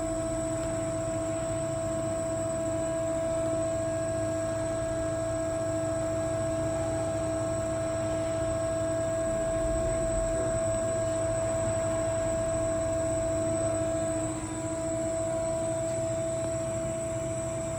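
Carell 305 CNC angle roll running, a steady machine hum with a constant whine. It dips briefly near the end.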